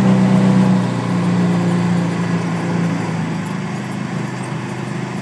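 Motor vehicle engine running at low speed, a steady hum that drops slightly in pitch and fades a little over the first three seconds.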